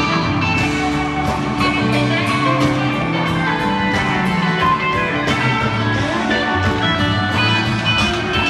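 Rock music with guitar over a steady beat, about two strikes a second.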